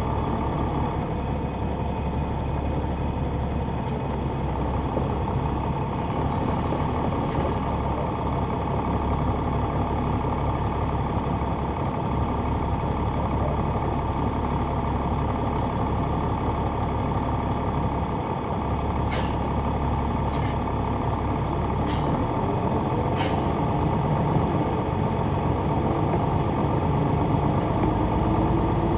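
Caterpillar C9 ACERT diesel engine of a 2004 Neoplan AN459 articulated bus running, heard from the rear seats, with a steady drone whose pitch shifts a few times and climbs near the end as the bus pulls away. A few short hisses of air come from the brakes around two-thirds of the way through.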